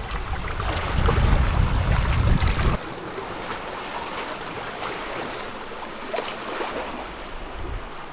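Wind buffeting the microphone over the rush of sea water and waves along a sailboat's hull. About three seconds in, the wind rumble cuts off suddenly, leaving a quieter, steady hiss of water.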